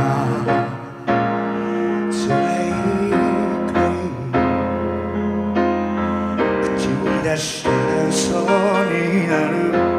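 Male singer performing live over piano and keyboard accompaniment, holding notes with vibrato, most clearly near the end.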